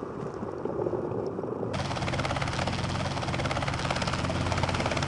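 Wind and water rushing, then suddenly, under two seconds in, the fast steady chop of a helicopter's rotor over the hum of its engine.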